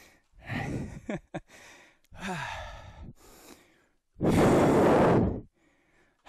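A man breathing out hard with effort as he works through repetitions: three forceful exhales about two seconds apart. The second has a low falling sigh in it, and the last, about four seconds in, is the loudest and longest.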